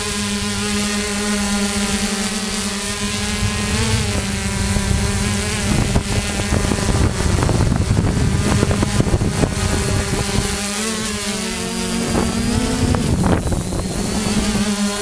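Electric motors and propellers of an HMF S550 hexacopter drone running in flight, a steady buzzing hum that shifts in pitch with throttle about four seconds in and again around twelve to thirteen seconds as it climbs. Gusty wind and prop-wash noise on the onboard microphone through the middle.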